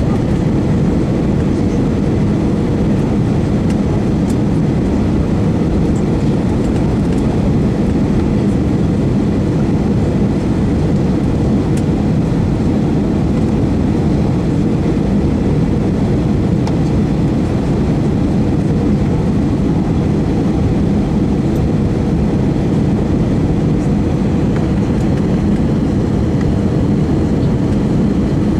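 Airbus A319 in flight, heard from inside the cabin: a steady, loud drone of the jet engines and airflow, with a faint hum running through it.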